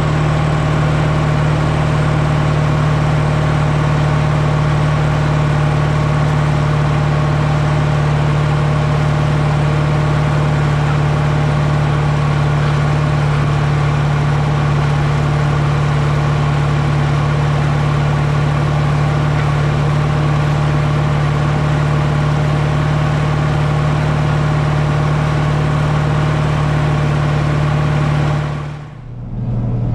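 Caterpillar 3208 turbocharged V8 diesel of a White 4-225 tractor running steadily under load through its vertical exhaust stack while pulling a disc.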